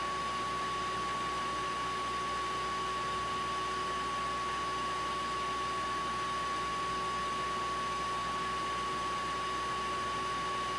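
Steady background hiss with a constant high-pitched whine, unchanging throughout.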